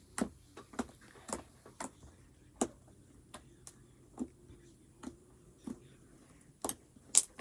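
Homemade pink glue slime being squeezed and kneaded by hand, giving irregular small clicks and pops, about two a second, the loudest about seven seconds in.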